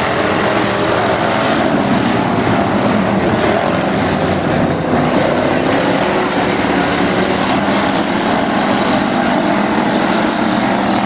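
Engines of a field of hobby stock race cars running together around a dirt oval, a loud, steady drone of several engines at once, their pitch drifting up and down a little as the cars circle the track.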